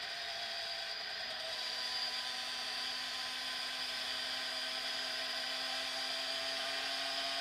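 2011 Derbi X-Treme motorcycle engine running hard at high revs, a steady high whine whose pitch and loudness creep slowly upward as it is held flat out in a top-speed run.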